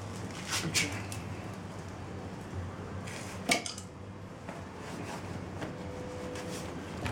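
A few light metallic clinks of tools and engine parts being handled during engine assembly, the clearest three near the start and about halfway through.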